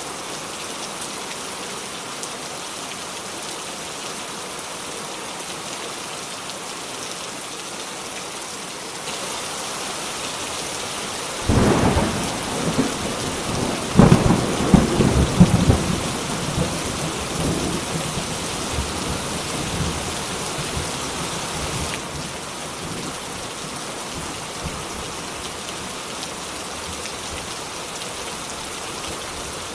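Steady rain falling, growing heavier about nine seconds in. A thunderclap breaks out shortly after, then a louder crash that rolls and rumbles for several seconds before fading. The rain eases back to its earlier level a few seconds later.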